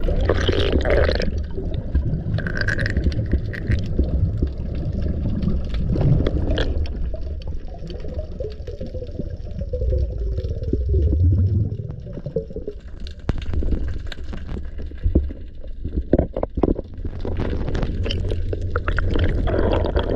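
Muffled underwater rumble heard through a submerged camera, with gurgling air bubbles and scattered small clicks.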